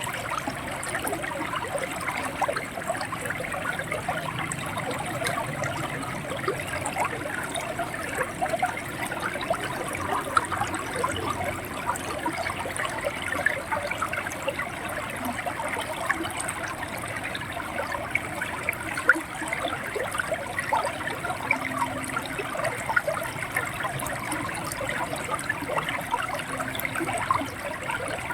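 River water flowing over a shallow bed, a steady babbling gurgle full of small quick splashes.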